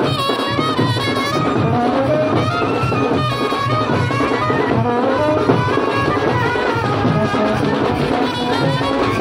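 Indian wedding brass band playing a loud, steady melody on trumpets and horns over a regular drum beat.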